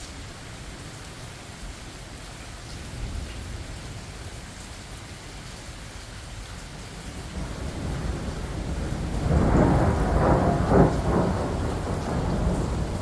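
Steady rain with a roll of thunder that builds from a low rumble about seven seconds in, peaks with crackling rumbles around ten seconds, and slowly fades.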